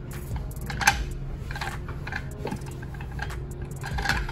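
Metal clicks and scrapes of a CZ BREN 805's bolt carrier being slid by hand into the upper receiver, with a sharper click about a second in.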